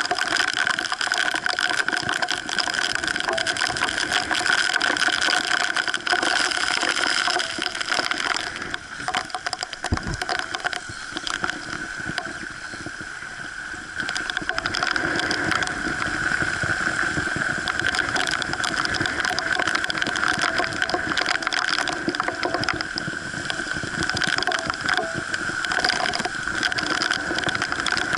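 Strong wind buffeting and water splashing aboard a small Sea Hopper sailing dinghy under way, with a steady high whine throughout. It eases for a few seconds in the middle, then picks up again.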